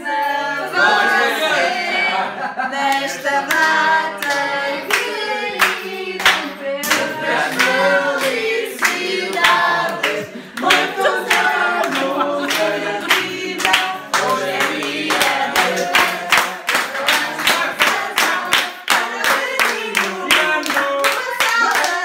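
A group of people singing a birthday song together, clapping their hands in a steady beat.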